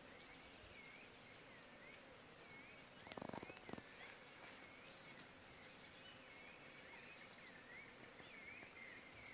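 Faint, steady high-pitched insect trill, with short looping bird whistles repeating over it. About three seconds in, a brief low buzzing sound lasts under a second.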